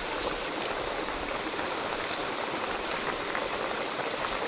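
Steady rushing of a creek together with a wok of fish soup at a rolling boil over a wood fire, with a few faint pops.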